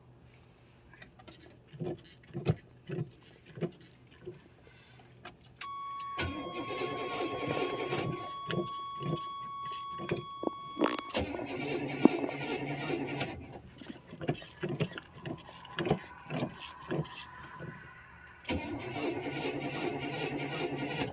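Cold start of a 1985 Chevrolet Suburban's Quadrajet-carbureted engine after sitting about two and a half weeks. The gas pedal is pumped in a series of knocks, then the starter cranks the engine while a steady warning chime sounds for about five seconds. More pedal knocks follow, and the engine cranks again near the end.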